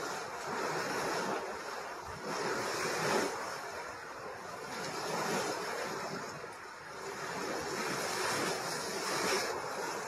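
Geothermal water rushing and splashing, a steady hiss that swells and eases every few seconds.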